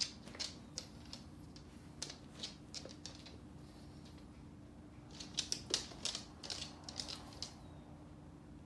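A dog's claws clicking on a laminate floor as it walks about, in irregular clusters of light ticks, over a faint steady low hum.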